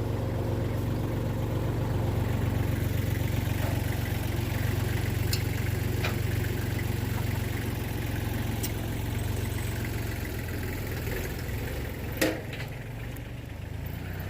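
An engine running steadily at idle, a low even hum, with a few sharp knocks over it, the loudest near the end.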